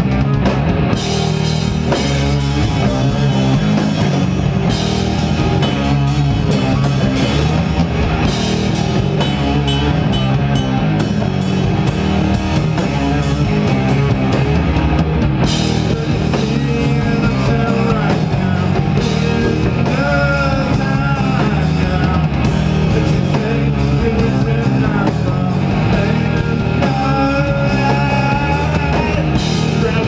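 Live rock band playing loud, with distorted electric guitars over a pounding drum kit. The cymbals fill in harder about halfway through.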